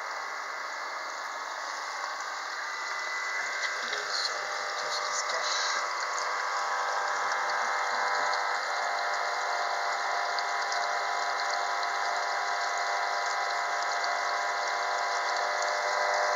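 Aquarium pumps running and water circulating in the tank: a steady hiss with a faint hum, growing a little louder a few seconds in.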